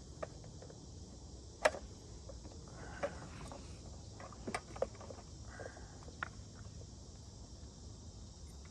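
Scattered metallic clicks and knocks from a chainsaw guide bar and chain being handled as the bar is flipped over, the loudest a little under two seconds in. A steady high chirring of insects runs underneath.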